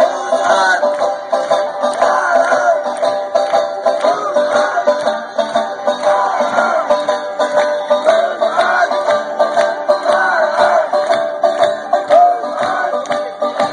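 Live folk sing-along: a strummed string instrument with a group of voices singing, and a crowd clapping along.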